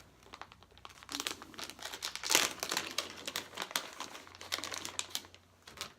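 Plastic packaging crinkling as it is handled, with irregular crackles starting about a second in and the loudest rustle about two seconds in, then one brief crinkle near the end.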